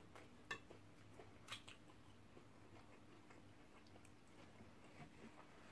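Near silence with faint eating sounds: two small clicks, about half a second and a second and a half in, then a few softer ticks.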